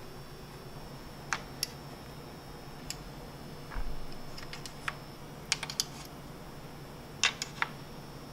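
Scattered light metallic clicks and taps, about ten in all, several in quick pairs or triplets, from a rivet's sharp end marking drill spots on a snowmobile's tunnel through the bumper's holes.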